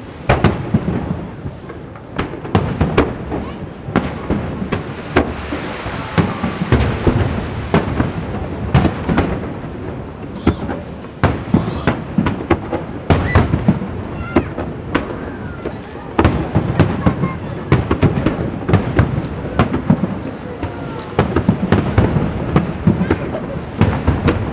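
Aerial fireworks bursting in rapid succession: a steady barrage of booms and cracks echoing over one another, with a few faint whistles in the middle.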